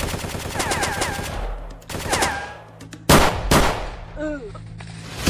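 Automatic gunfire: a rapid burst of many quick shots for about two seconds, then two heavy single shots about three seconds in.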